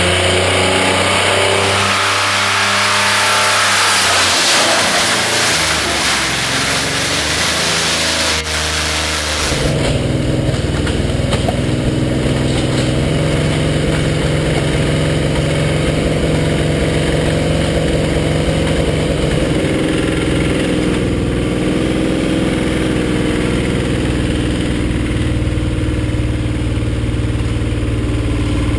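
Ford EL Falcon's six-cylinder engine, run dry of oil, revving up and then held screaming on the rev limiter. About eight to nine seconds in there is a sharp crack, and the note suddenly drops to a lower, rough, steady running: two connecting rods have broken out through the sump, and the engine keeps running on its remaining four cylinders.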